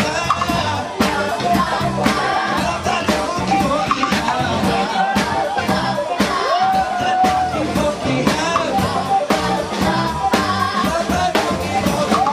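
Live band playing an upbeat song: drum kit keeping a steady beat, with electric bass, keyboard and guitar, and singers at the microphones.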